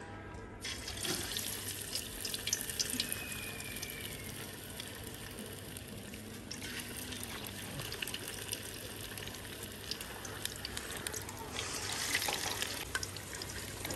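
Besan-battered fish pieces sizzling in hot ghee in an aluminium pot: a steady hiss with scattered crackles that starts suddenly about half a second in as the first piece goes into the oil. The sizzle swells near the end as another piece is lowered in.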